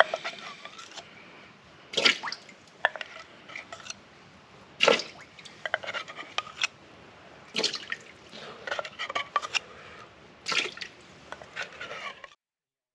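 Water dripping: a heavier drop lands about every three seconds, with smaller drips between, and the dripping stops abruptly near the end.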